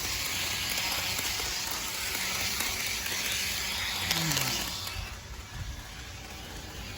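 HO scale model train running on its track: a steady hissing whir from the small locomotive motor and the wheels on the rails. It is louder for about the first five seconds, then drops away.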